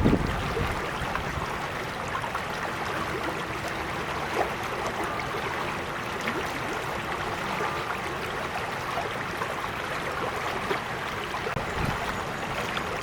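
Small creek flowing steadily, an even babble of running water flecked with many tiny splashes.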